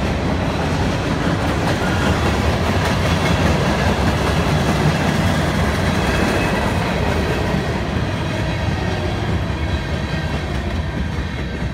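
Freight train's hopper cars rolling past close by, steel wheels running steadily on the rails.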